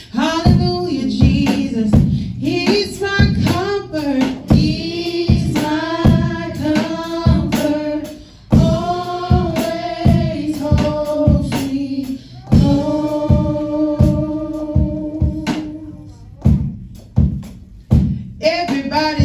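A woman singing a church song into a microphone, amplified through a PA speaker, in phrases with long held notes over a steady beat.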